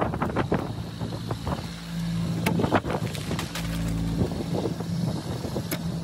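Farm utility vehicle's engine idling steadily, with wind gusting over the microphone.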